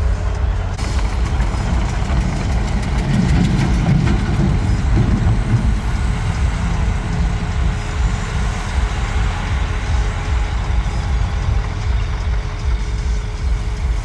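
Heavy diesel earthmoving machinery running, a dump truck and a Komatsu crawler bulldozer working dirt: a steady, loud engine rumble.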